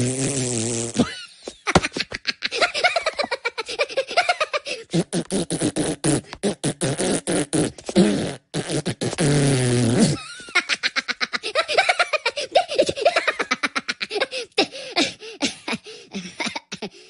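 Two Minions cartoon characters making fart noises at each other, with high-pitched gibberish chatter and giggling between them.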